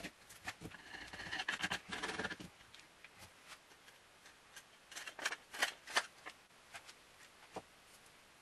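A rasping scrape of hand-worked wood with a blade, mixed with brushing over paper, for about two and a half seconds. Then come scattered sharp clicks and light taps of wooden pieces and a chisel being handled, the loudest a little after halfway.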